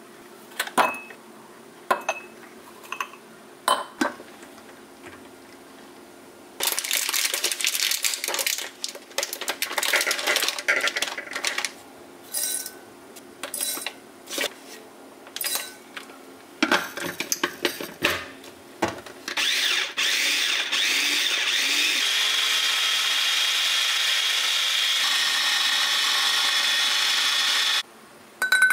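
Ice cubes clinking into a glass a few times, then rustling of a plastic bag as oats are spooned out, with light knocks. Later an electric mini food chopper grinds rolled oats for about eight seconds, its note changing twice before it cuts off suddenly near the end.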